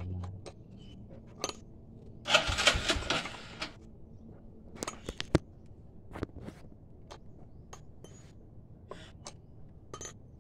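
Metal tools clinking and scraping against a small chainsaw's housing as its bolts are worked loose, in scattered sharp clicks. About two seconds in comes a longer, louder rattle of metal on metal.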